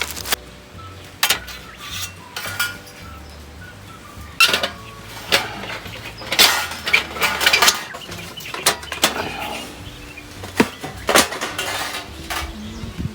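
Thin metal plates of a Picogrill-style folding fire pit clinking and clattering as they are taken out of the case and fitted together, in a series of irregular sharp metallic clicks with short ringing.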